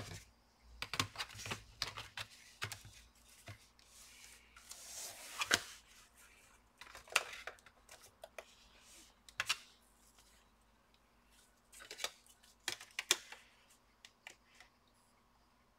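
Clicks, taps and knocks of plastic and metal as the opened HP 15-af laptop is handled, its screen lid raised and the chassis tilted. There is a brief hiss about five seconds in, and it goes quieter near the end.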